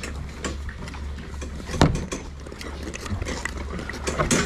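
Metal clattering and knocking from the fittings of a calf pen as the calves move about, over a steady low hum, with a louder thump about two seconds in.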